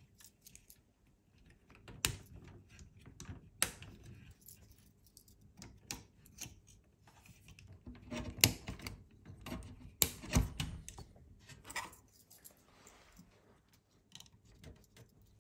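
Small plastic and metal clicks, taps and scrapes as a replacement pinch roller is fitted onto its arm in the tape mechanism of a Technics RS-TR474M2 cassette deck. A few sharper clicks stand out, the loudest about eight and a half and ten and a half seconds in.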